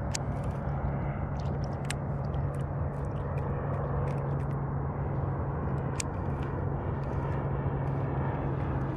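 Light, irregular clicking and ticking from a baitcasting reel as a hooked bass is reeled in, over a steady low rumble.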